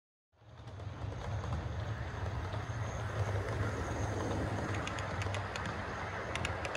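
ACME model E626 electric locomotive and its loaded flat wagons running along the model railway track: a steady low rolling rumble that cuts in just after the start, with quick clicks of wheels over rail joints from about five seconds in.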